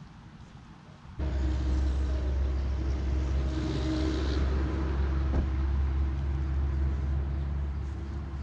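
A motor vehicle engine running at a steady idle: a low rumble that starts suddenly about a second in, with one short click about halfway through.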